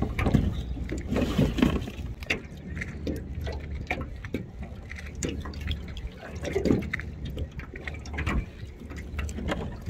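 Wet, irregular water sounds, sloshing and dripping, with scattered small clicks and handling noise as a small flounder is held in a wet rag and unhooked, over a low steady rumble.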